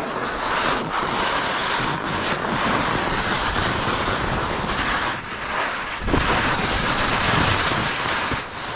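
Skis hissing and scraping through chopped-up snow, the rush easing briefly between turns, with wind buffeting the camera microphone; a heavier low rumble of wind comes in about six seconds in.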